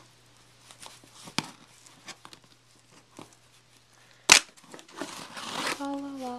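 A cardboard shipping box is worked open by hand: light scattered taps and scrapes, a sharp snap about four seconds in, then the rasp of the cardboard flap tearing open. Near the end a person starts humming a steady note.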